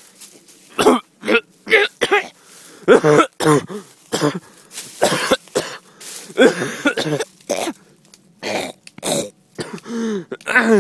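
A man coughing, gagging and clearing his throat over and over in short fits while he tries to swallow a whole spiny thistle head.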